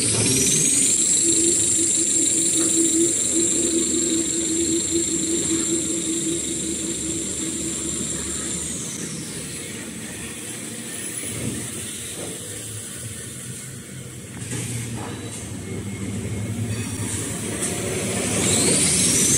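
Toilet paper and kitchen towel rewinding machine spinning up with a high whine that rises in pitch, holds steady, then falls away after about nine seconds as it slows. After a quieter stretch of factory machinery hum, the whine starts rising again near the end.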